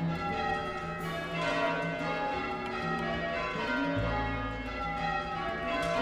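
Church tower bells being rung in changes, a peal pulled on bell ropes, with many overlapping ringing tones. A deep sustained low note joins about four seconds in.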